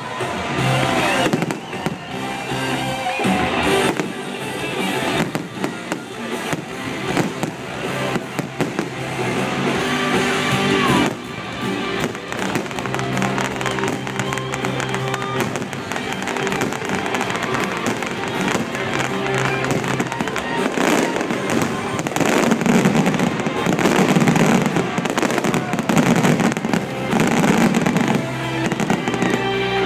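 Fireworks finale: a dense barrage of shell bursts and crackle, heaviest near the end, over a live band playing.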